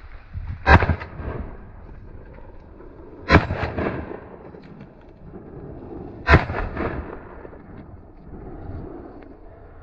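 Three gunshots about three seconds apart, each followed by a short echo.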